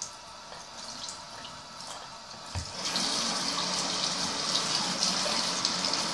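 Bathroom sink tap running while a mouth guard is washed under it. The water gets louder about three seconds in, just after a soft knock.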